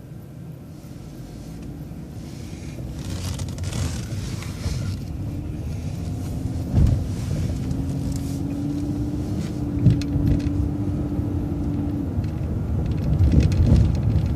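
City transit bus pulling away and accelerating: a low engine rumble grows louder, with a whine that climbs slightly in pitch and holds for several seconds. There are a couple of short thumps.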